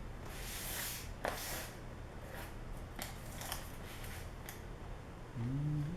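A cardboard shipping package being opened by hand: rustling and scraping of cardboard and packing, with a sharp click about a second in. A short hummed voice near the end.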